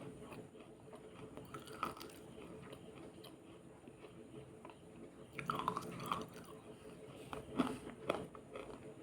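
Close-up biting and chewing of something wet and crunchy: quiet, scattered crunches, with louder clusters about two seconds in, in the middle, and near the end.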